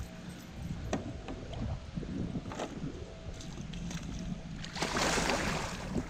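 Wind buffeting the microphone over river water, with a couple of light knocks and a louder rush of hiss lasting about a second, about five seconds in.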